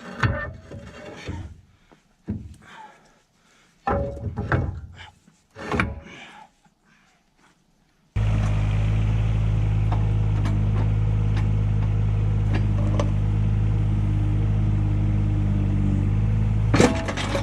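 A few scattered short knocks and clatters, then about eight seconds in a diesel excavator engine starts up suddenly and runs at a steady speed, with a few faint ticks over it and a sharp loud sound near the end.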